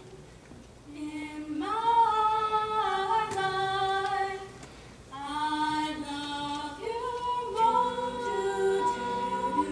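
A small group of teenage girls singing a cappella, one voice carried by a handheld microphone leading the melody in long, held notes. A brief break a little before halfway, and about two-thirds through a lower harmony part joins under the melody.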